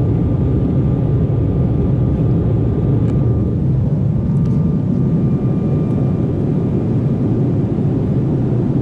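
Steady cabin noise of a jet airliner in flight: a deep, even rush of engines and airflow with a faint steady high whine over it.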